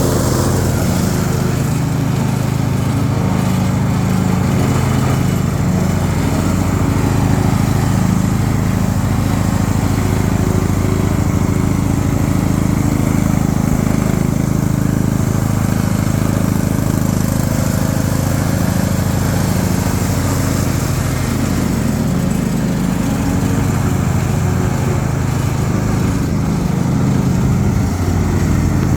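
Riding lawnmower engine running steadily under way, with an even drone and little change in speed.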